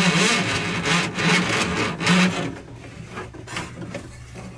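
Steel drain-snake cable being pulled back out of a sink drain pipe by hand, scraping and rattling against the pipe in repeated pulls. The scraping stops about halfway through, leaving a faint low hum.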